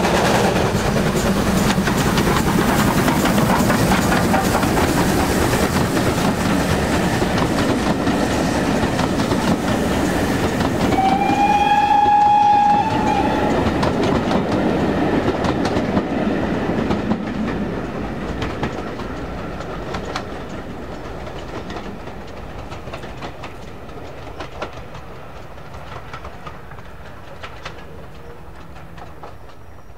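GWR Manor-class 4-6-0 steam locomotive 7820 Dinmore Manor running past with its train, the wheels clattering over the rail joints. A short whistle sounds about eleven seconds in. The noise then fades steadily as the train draws away.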